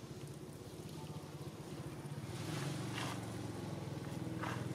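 A motor engine hums steadily, growing louder a couple of seconds in, with two faint brief rustles near the end.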